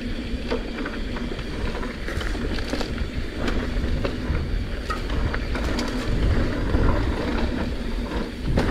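Mountain bike rolling along a dirt trail, heard from a camera on the bike: a steady low wind and tyre rumble, with scattered clicks and rattles from the bike and loose dirt under the tyres.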